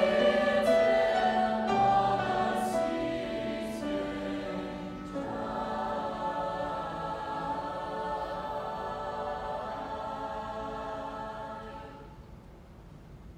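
Mixed choir singing sustained chords, loud at first, then softer from about five seconds in, and dying away near the end.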